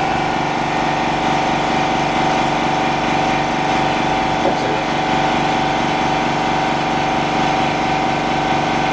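Steady motor hum with a high whine from an LCD-repair bubble remover machine running its pressurised de-bubbling cycle.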